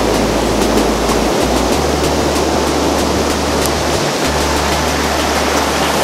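A rocky mountain river rushing through shallow rapids, a loud, steady rush of water. Low bass notes of background music sit beneath it.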